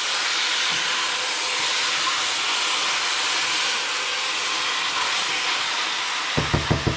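Chicken pieces searing in hot oil with sautéed garlic, onion, ginger and tomato in a stainless steel pot, a steady sizzling hiss as they are stirred with a spatula. Near the end come four quick low knocks.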